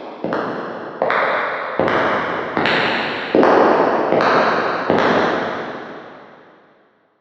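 Footsteps at a steady walking pace, about one step every 0.8 seconds, each step echoing and ringing on until the next. The steps grow louder toward the middle. The last one comes about five seconds in, and its echo dies away.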